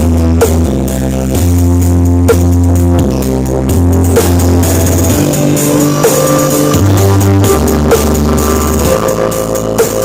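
Loud dance music played through a large stacked-subwoofer street sound system: long, heavy bass notes that shift pitch every second or so, with a sharp drum hit about once a second.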